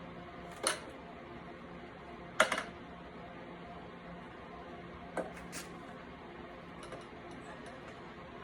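A few short, sharp clicks and knocks of metal tools and engine parts being handled, the loudest about two and a half seconds in, over a faint steady hum.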